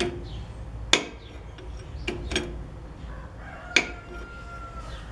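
Steel tools and bandsaw parts clinking and knocking as a puller and wheel are handled, four sharp metallic clinks with the loudest near the end. A thin squeak follows the last clink for about a second.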